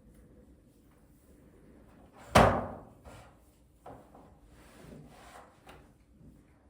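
A sharp thump about two and a half seconds in, fading out over half a second, followed by a few softer knocks and handling sounds.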